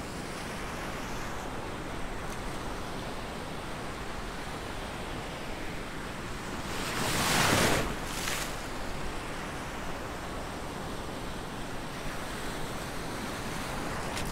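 Mediterranean surf heard from water level: a steady wash of small waves. About halfway through, one wave breaks close by, louder than the rest, followed by a brief second splash.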